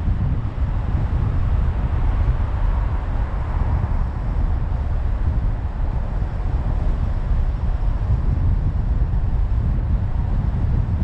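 Steady low rumble of a car driving at speed, road and wind noise with no clear engine note.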